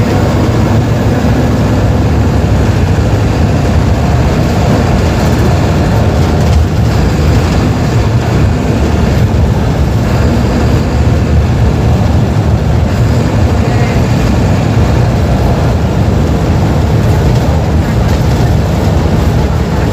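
Mercedes-Benz OF-1721 BlueTec 5 bus diesel engine running steadily and loudly, a low, even drone.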